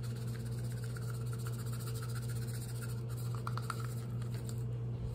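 Brown sugar poured and scraped from a small bowl into a glass mixing bowl, making a light scratching and patter, over a steady low hum.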